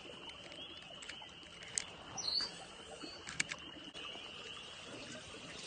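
A steady high-pitched chorus of small calling animals from the marsh, with a bird chirping once about two seconds in and a couple of faint clicks of handled gear.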